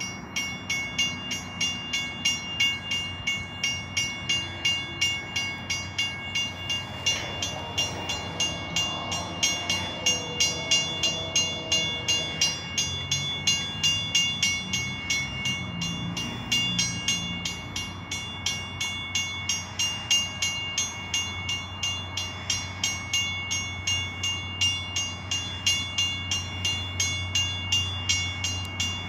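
Railroad warning bell ringing steadily at about two strikes a second as a train approaches. A low rumble from the oncoming train builds in the last third.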